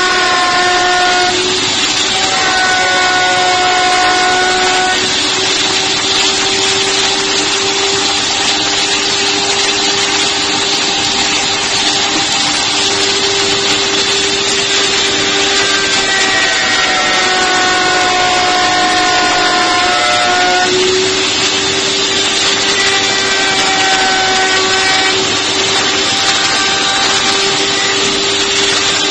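Table-mounted router running at speed, its bit cutting a radius into a plywood corner as the piece is fed against it. A steady high motor whine sits over the cutting noise and dips and recovers in pitch a few times as the load on the bit changes.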